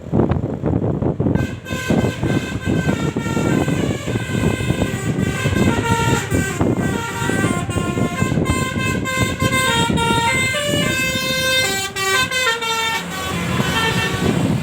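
Bus telolet basuri horn playing a long tune of stepping, shifting tones, starting about a second and a half in and stopping near the end. A low rumble of the moving bus runs underneath.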